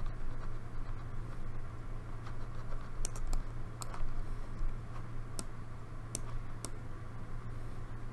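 Scattered sharp clicks of a computer keyboard and mouse, mostly in the second half, over a steady low hum.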